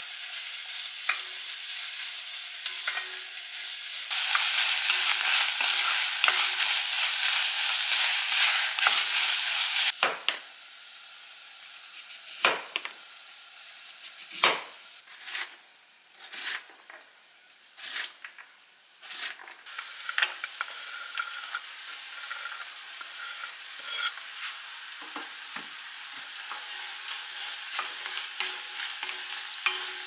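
Chopped onion sizzling in an enamel pot on a gas hob while a wooden spatula stirs it, the frying hiss much louder from about 4 to 10 seconds in. Then about nine sharp knife cuts through carrot on a wooden cutting board, and finally diced carrot and onion sizzling together as they are stirred.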